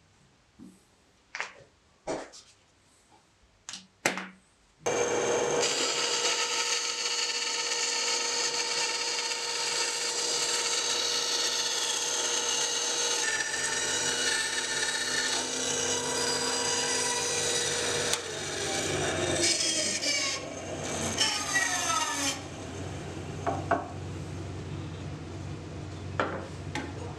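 A few light clicks and taps, then a Ryobi band saw starts about five seconds in and runs steadily, cutting a traced circle out of a small block of wood; it gets quieter for the last few seconds as the cut is finished.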